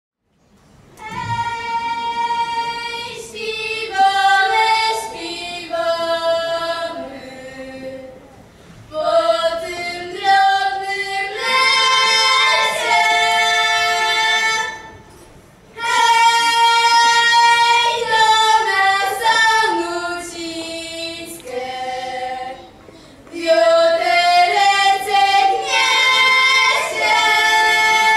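Three girls singing a folk song a cappella in harmony, in sustained phrases several seconds long with short breaks between them.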